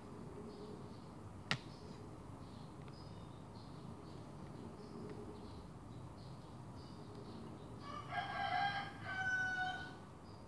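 Two loud pitched animal calls, one right after the other near the end, each under a second long. A single sharp click comes about a second and a half in, over faint high chirping.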